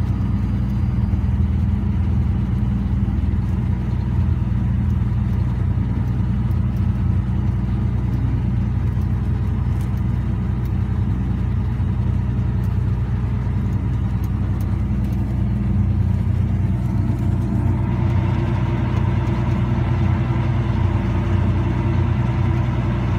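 A farm tractor's engine runs steadily under load, pulling a tile plow as it lays drainage tile. About eighteen seconds in, more higher-pitched mechanical noise joins the drone.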